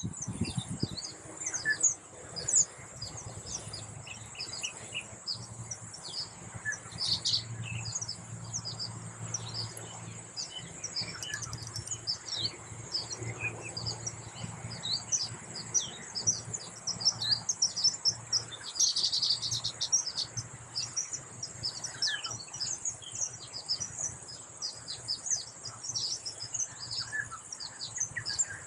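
Baya weavers chirping and chattering continuously, many short calls overlapping, over a steady high insect buzz.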